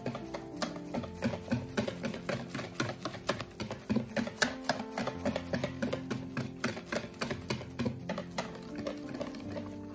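Wire whisk beating thin qatayef batter in a bowl, its wires clicking against the bowl's side about five times a second, over soft background music with held notes.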